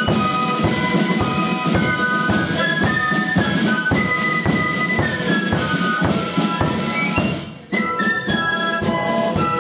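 Fife-and-drum band playing a tune: shrill fifes in unison carry the melody over steady drum beats. The music drops away briefly near the end and then comes back in with a strong beat.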